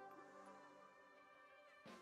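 Near silence with very faint background music.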